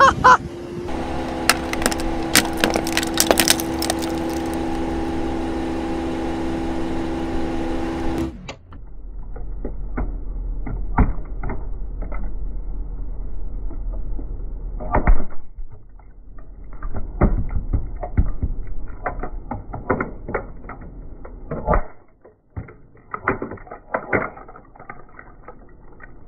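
For the first eight seconds, a steady hum of several tones with many sharp clicks. Then plastic sunglasses crack and snap under a heavy car's tyre as it rolls slowly over them: scattered sharp cracks in clusters, over a low hum.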